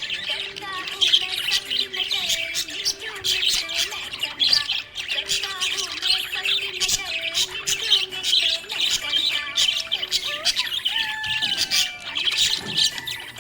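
Budgerigars chirping and chattering: a dense, unbroken stream of short, sharp chirps, with lower wavering warble notes underneath.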